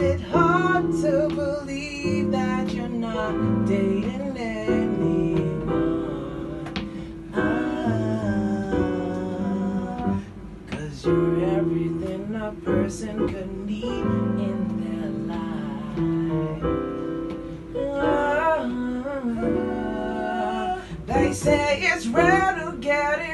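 Two male vocalists singing together over an instrumental accompaniment, one of them playing a keyboard as he sings.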